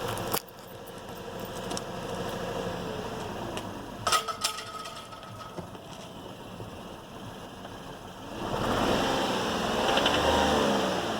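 2008 Lexus IS250's 2.5-litre V6 running with a knocking sound, then revved up and back down in the last few seconds. The knock comes just after CRC valve cleaner was sprayed into the intake through the brake booster line.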